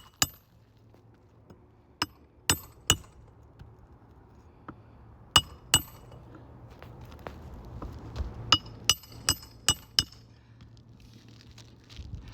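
A hammer striking metal on a shingle roof, about eleven sharp ringing clinks in small groups of two or three, with pauses between.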